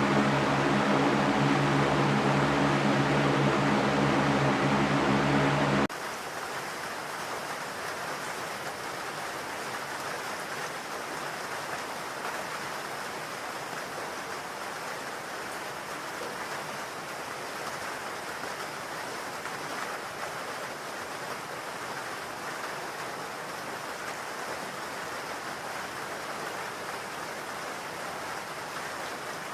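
Steady white noise for soothing a baby: a louder humming noise with steady low tones for about six seconds, then an abrupt cut to a quieter, even hiss that sounds like rushing water or rain.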